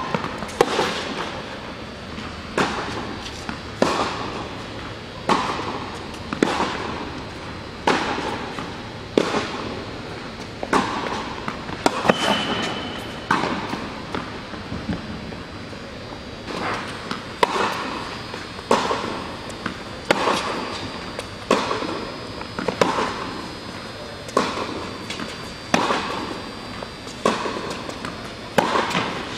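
Tennis ball hit back and forth with rackets in a rally on an indoor hard court. Each hit and bounce rings out and echoes through the hall, roughly one strike every second or so. A short high squeak comes about twelve seconds in.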